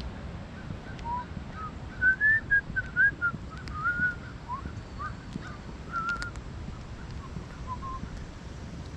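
A bird singing a run of short whistled chirps that rise and fall in pitch, most of them in the first few seconds and thinning out near the end, over a steady low rumble.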